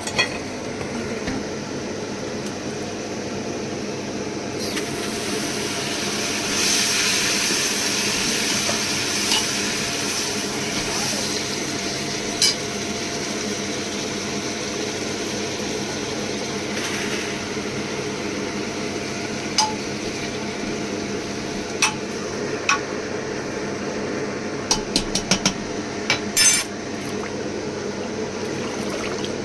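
Kitchen handling sounds as wet chopped karam greens go by hand from a steel bowl into a pressure cooker of hot spiced oil. A hiss swells a few seconds in, then there are scattered metal clinks of the pot and utensils, clustered near the end, over a steady hum.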